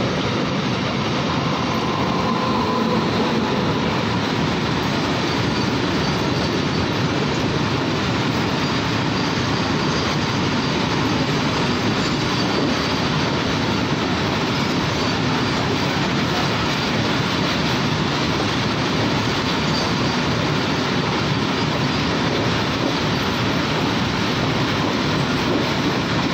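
Indian Railways' Super Vasuki long-haul freight train running through a station, its wagons rolling past close by in a steady, unbroken noise of steel wheels on rail.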